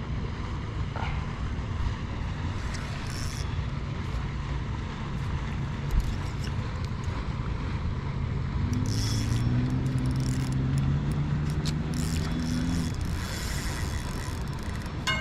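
A motor engine running steadily in the background, with a second engine's pitched hum swelling and rising slightly in pitch from about nine to thirteen seconds in as it passes. A single sharp knock about six seconds in.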